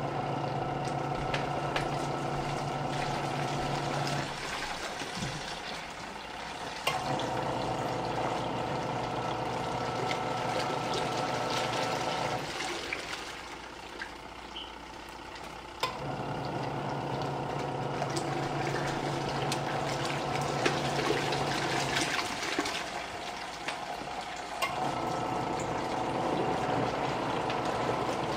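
Portable twin-tub washing machine on its wash cycle: the motor hums for a few seconds, stops for two to three seconds and starts again, over and over, with water and clothes sloshing in the tub.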